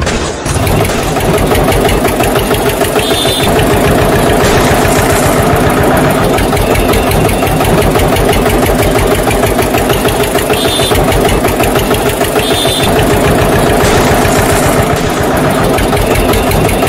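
Diesel tractor engine sound running steadily with a fast, even chugging knock.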